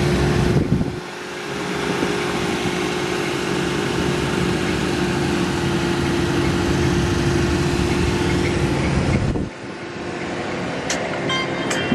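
The 1984 Pontiac Parisienne wagon's V8 idling steadily, running again now that its no-start has been cured with a new ignition module, distributor cap, rotor and coil. The sound dips briefly about a second in and again near the end, and a few sharp clicks come in the last second or so.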